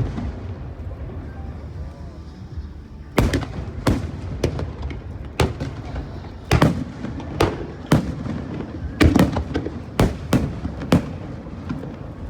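Aerial firework shells bursting overhead: after a quieter stretch of about three seconds, a rapid, irregular string of sharp bangs, one or two a second, some followed by a short rumble.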